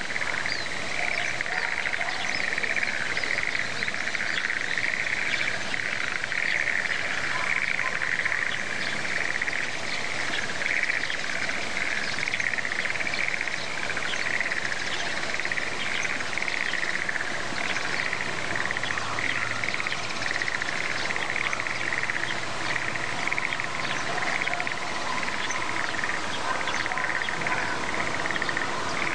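Dense chorus of frogs calling from flooded rice paddies, steady and unbroken, with scattered short bird chirps over it.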